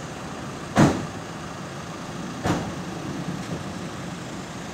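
Street traffic noise with a steady low hum, broken by two short thumps: a louder one about a second in and a weaker one about two and a half seconds in.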